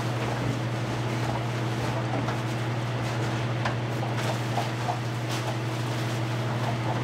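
A steady low mechanical hum, with the intermittent rustle of dry pine shavings being scooped by hand from a bag into plastic nesting boxes.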